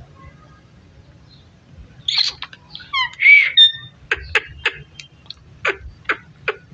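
Parrot calling: after a couple of seconds of quiet, a harsh squawk, a quick run of falling chirps and a loud call, then a string of short, clipped calls.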